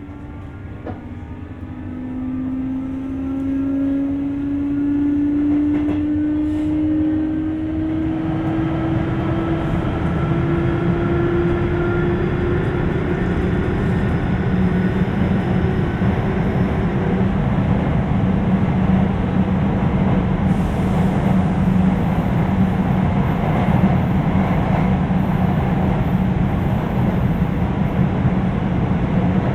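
Sotetsu 8000 series electric train heard from inside the car. The Hitachi GTO-VVVF inverter whines in several tones that climb slowly in pitch as the train accelerates. After about eight seconds the whine sinks under a steady, louder rumble of wheels on rail.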